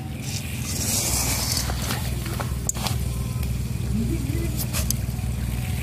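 An engine running steadily, a low even hum, with a few sharp clicks about halfway through.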